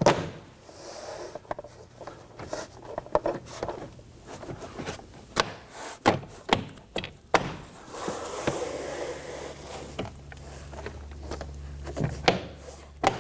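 Plastic interior door trim panel being handled and hung onto a car door: irregular knocks, clicks and rubbing of plastic against the door. A low hum joins for a few seconds in the second half.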